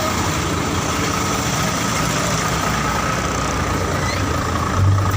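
Heavy diesel engine of a Mercedes-Benz Actros 4043 dump truck running steadily, with a brief louder low drone near the end.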